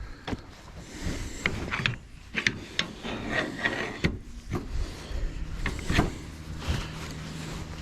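Boards and scrap wood being handled, with irregular wooden knocks, clatters and scraping. A faint, steady low hum comes in about two-thirds of the way through.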